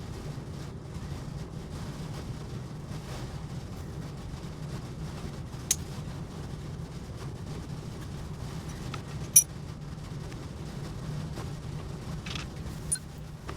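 Three sharp clicks of hand tools or parts against metal, the loudest about two thirds of the way through, over a steady low hum.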